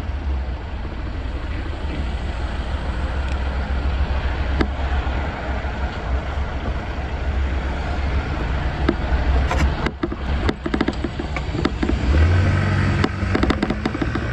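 Riding on an Arora scooter: a steady low wind rumble over the microphone with the scooter's engine and road noise. About ten seconds in the wind turns gusty, and a louder engine note rises near the end.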